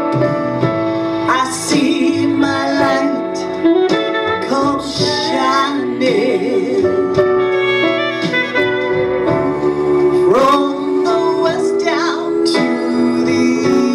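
A woman sings live into a microphone in long, sliding vocal runs between lines of the song. Instrumental backing plays underneath.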